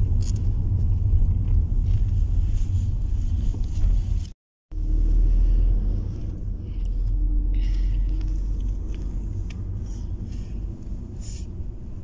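Low, steady rumble of road and engine noise inside a moving car's cabin, heard from the back seat. The sound cuts out completely for a moment a little over four seconds in, then the rumble resumes and eases slightly.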